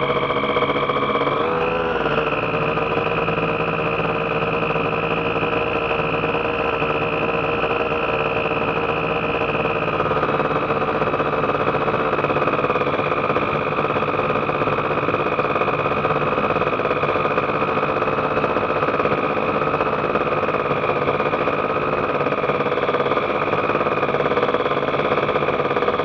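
Ultralight aircraft engine and propeller running steadily at one constant pitch. The pitch wavers briefly about two seconds in and shifts slightly about ten seconds in.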